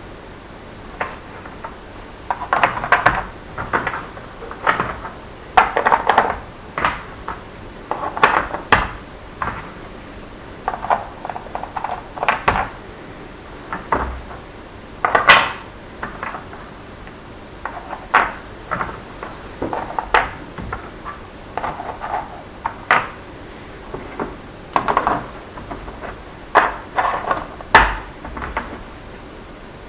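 Test blocks clicking and clattering as they are picked off one board and dropped into the slots of another, in quick irregular clusters of light knocks; two sharper knocks stand out, one about halfway through and one near the end.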